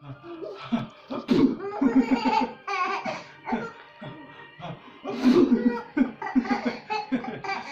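A small child's hearty belly laughter in repeated bursts of quick 'ha-ha-ha' pulses, the laughing so hard that it breaks into coughs.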